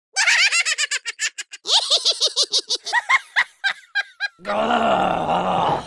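Cartoon character voice laughing in a high-pitched, sped-up giggle of rapid bouncing syllables that slow down, followed near the end by a buzzing, breathy sound about a second and a half long.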